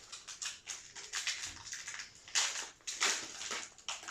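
Foil trading-card booster pack wrappers crinkling and rustling as packs are opened and handled: an irregular run of sharp, papery crackles, loudest about two and a half and three seconds in.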